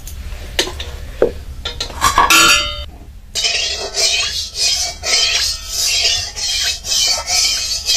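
Steel cooking utensils and bowls clinking and ringing against a metal kadai, with a cluster of clinks about two seconds in. About three seconds in, background music with a steady beat starts.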